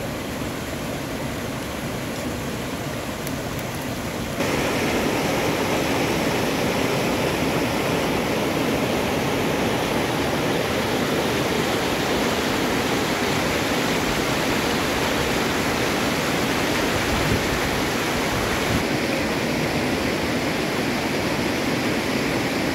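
River rapids rushing over rock ledges and boulders: a steady rush of whitewater, louder from about four seconds in.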